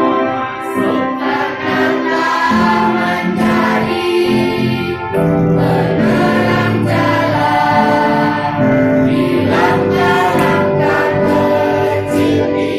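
A group of young girls singing together as a children's choir over sustained, organ-like electronic keyboard chords.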